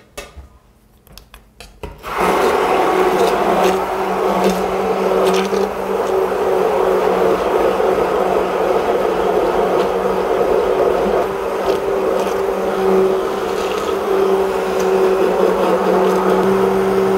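Immersion (stick) blender switched on about two seconds in and running steadily with a constant motor hum. It is puréeing a runny sea urchin and egg-yolk sauce base in a tall stainless-steel container, before the oil is added for the mayonnaise.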